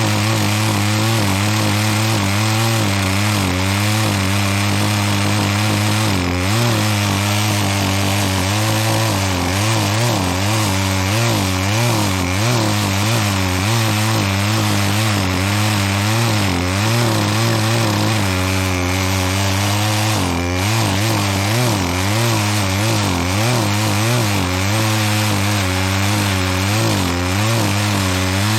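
Chainsaw running steadily, cutting into a pine tree with a dull chain, its engine note wavering up and down as it works through the wood.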